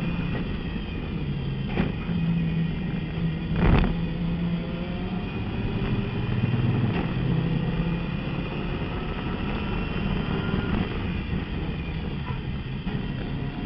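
Turbocharged race car engine heard from inside the cockpit under racing load, its note stepping up and down as the driver shifts through the gears into and out of a corner. There is a loud thump about four seconds in.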